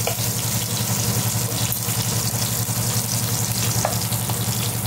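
Food frying in a pan, sizzling steadily, with a few light clicks and a low steady hum underneath.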